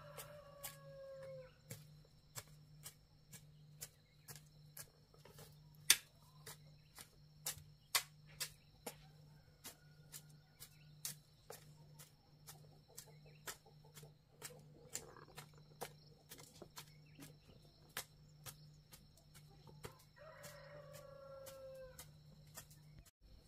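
A rooster crows twice: one falling call at the start and another about 20 seconds in. Between them runs an irregular stream of sharp clicks and taps, about two a second.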